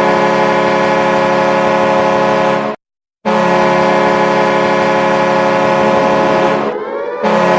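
Ice hockey arena goal horn, a chord air horn, sounding in long steady blasts: one of about three seconds, a brief break, then a second of about three and a half seconds whose pitch sags downward before a third blast begins near the end.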